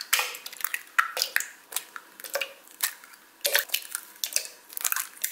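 Raw eggs being cracked one after another and dropped into a clear plastic cup: sharp shell cracks with wet squishing plops between them, repeated several times.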